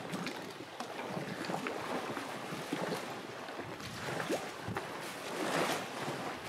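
Wind and lapping water around a moored boat, with wind noise on the microphone and scattered small clicks and knocks.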